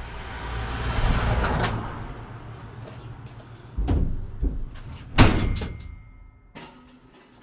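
A van's sliding door run along its track and slammed shut, with a knock about four seconds in and the loudest slam about a second later.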